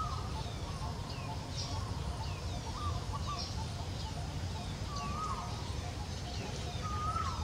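Wild birds calling in the background: many short, high chirps falling in pitch, and a lower drawn-out call that drops at its end about four times, roughly every two seconds, over a steady low rumble.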